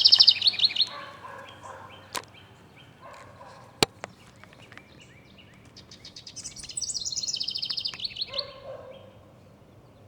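A songbird singing a fast trill of short notes that falls in pitch, once at the start and again about seven seconds in. A single sharp click just before the middle.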